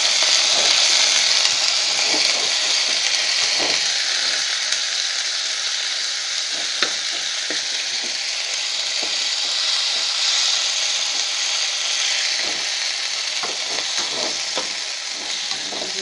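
Chicken pieces sizzling in hot oil in a stainless steel pan, the sizzle easing a little as they cook. A metal spoon stirring them gives occasional scrapes and knocks against the pan.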